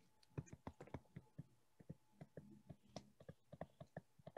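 Faint, irregular clicks and taps, several a second, from a stylus tapping and dragging on a tablet as handwriting is drawn.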